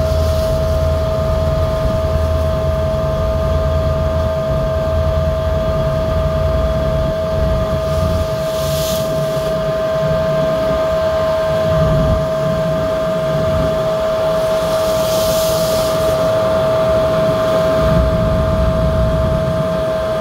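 Pilot boat's engines running at speed, a steady drone with a constant high whine over it, and the wake water rushing alongside the hull. Twice, about nine seconds in and again around fifteen seconds, a louder hiss of spray or wind rises over it.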